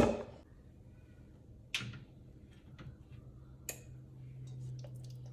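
A sharp knock, a second knock a couple of seconds later, and a short click, with a low steady hum setting in past the halfway point.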